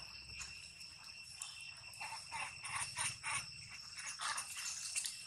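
Irregular soft crackling and rustling, as of macaques moving and handling food among dry leaves, over a steady high-pitched insect drone. The crackles cluster in the second half.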